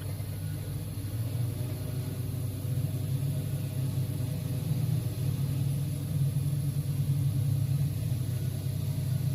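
Diesel engine of heavy mining equipment running steadily, a low drone that grows slightly louder about three seconds in.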